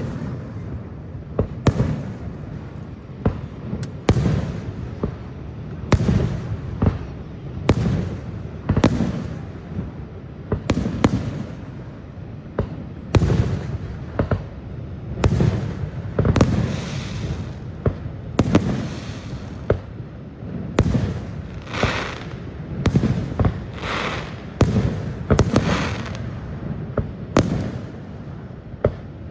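A fireworks display: aerial shells bursting one after another, a sharp boom about every second. Several bursts near the middle and later on trail into longer crackling.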